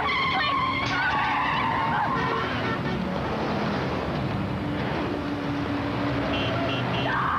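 A car skidding with tyres squealing, a wavering high screech in the first couple of seconds that gives way to a steadier engine-like hum, mixed with dramatic background music.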